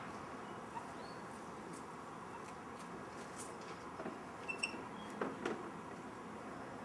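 Steady outdoor background hiss with a few faint short high chirps, and a cluster of light clicks and knocks about two thirds of the way through.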